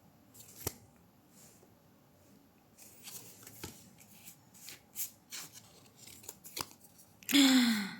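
Small clicks, taps and rustles of packaging and items being handled during an unboxing, with a CD case among them. Near the end comes a short vocal sound that falls in pitch.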